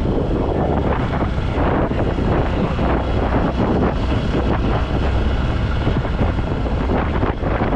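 Yamaha RayZR 125 scooter being ridden: engine running steadily under heavy wind noise on the microphone.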